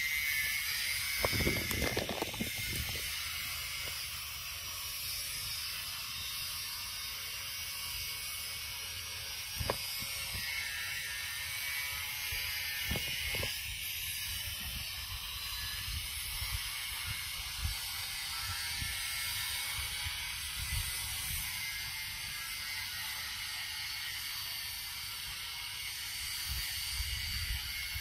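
Steady high-pitched droning and rasping of insects in the forest canopy, with a low rumble underneath and a few soft knocks.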